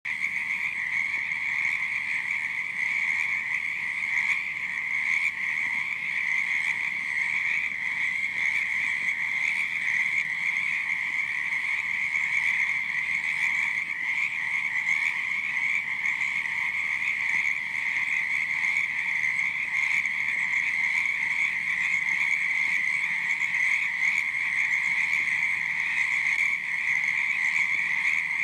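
A dense chorus of many frogs croaking together, high-pitched and continuous, with no single call standing out and no pauses.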